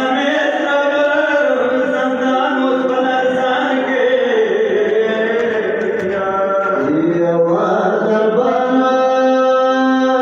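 A voice chanting a Pashto noha, a Shia lament for Imam Husain, the melody moving in sung phrases and settling into a long held note in the last few seconds.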